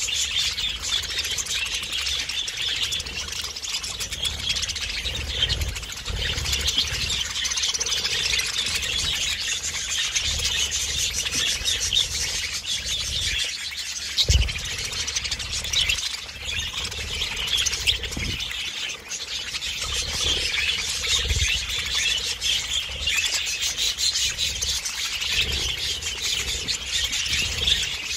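A flock of budgerigars chattering and chirping without pause, a dense high twittering, with a few low thumps underneath, the loudest about fourteen seconds in.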